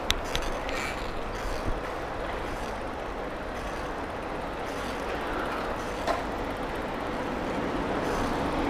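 Steady rumble of street traffic and riding noise as a folding bicycle is ridden along a street, with a sharp click just after the start and another about six seconds in.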